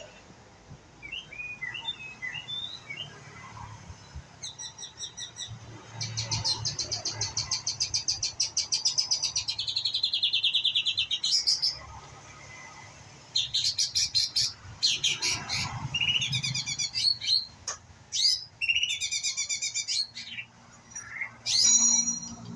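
White-rumped shama singing a string of varied, fast-trilled phrases, with one long rapid trill running from about a quarter of the way in to about halfway.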